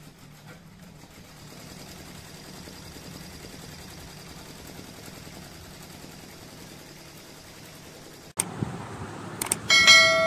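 Computerized multi-head embroidery machine running with a steady hum. About eight seconds in it gives way to a few sharp clicks and then a loud, ringing bell ding, the loudest sound.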